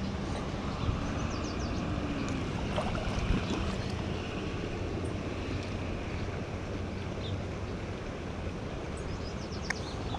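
Small creek running steadily over riffles, an even rush of water. A low hum sits underneath and fades out about halfway through.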